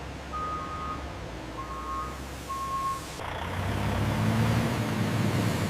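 Truck backing up with its reversing alarm beeping three times, over a low engine rumble. A little past halfway the beeps stop and a louder, steady truck engine sound takes over.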